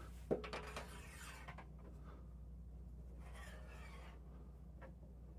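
Faint clicks and a short scraping rub as a new screw-in water heater heating element is fitted into the tank's threaded port, with one more light tick near the end.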